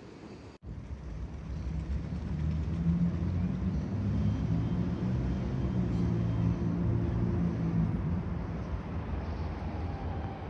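Low engine rumble of a heavy vehicle passing, swelling over a couple of seconds, holding, then easing off near the end.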